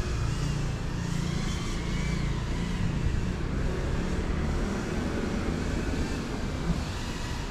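Brushless motors of a GEPRC CineLog35 FPV cinewhoop whining as it flies, the pitch rising and falling with the throttle and strongest in the first few seconds, over a steady low rumble.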